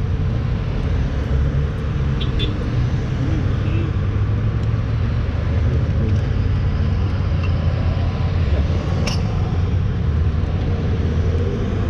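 Road traffic: cars driving past on a multi-lane road over a steady low rumble. A single sharp click about nine seconds in.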